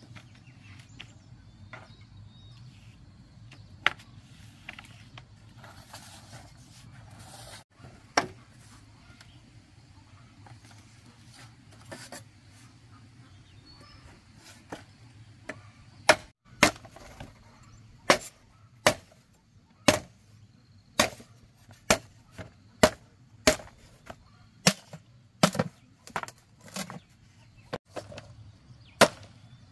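Machete chopping into a green bamboo pole resting on a wooden block: a few scattered knocks at first, then from about halfway a steady run of sharp strikes, a little over one a second.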